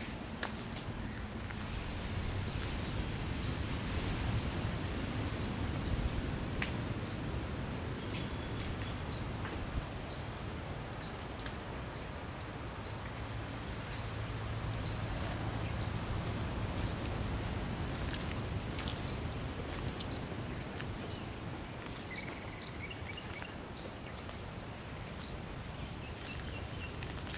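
Outdoor ambience: a short, high chirp repeated at an even pace, about one and a half times a second, over a low rumble.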